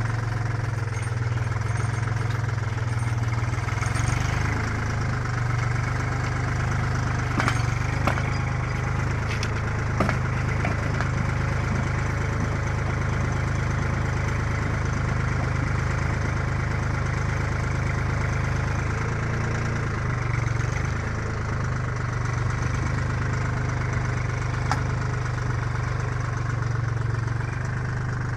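Tractor engine running steadily, turning a home-built tractor-mounted earth auger through its PTO shaft as it bores into clay soil. A few short sharp knocks stand out over the engine in the first ten seconds.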